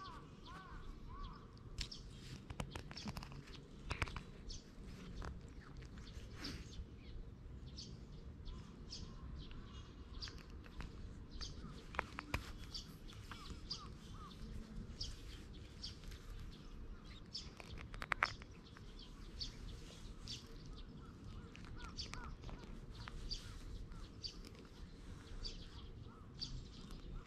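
Small birds chirping throughout, over a low outdoor rumble, with soft scratching and rustling from a plastic cat grooming file (nekojasuri) being rubbed over a cat's face and fur.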